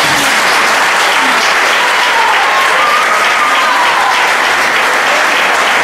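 Audience applauding loudly, a dense, even clapping, with a faint cheer rising over it midway.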